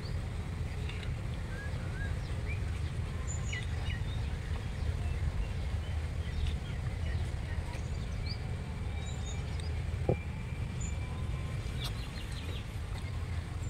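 Outdoor ambience: scattered short bird chirps over a steady low rumble, with a single click about ten seconds in.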